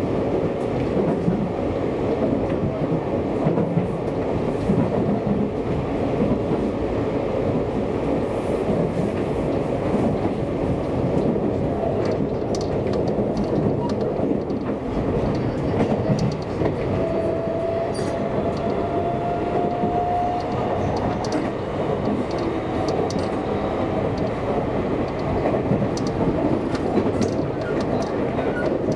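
Seibu Railway electric commuter train running along the line: a steady rumble of wheels on rail, with scattered clicks over rail joints and a faint thin squeal lasting a few seconds past the middle.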